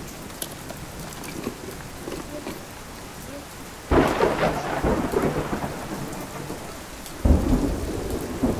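Thunderstorm sound effect: steady rain with two sudden thunderclaps, one about four seconds in and one about seven seconds in, each rumbling on afterwards.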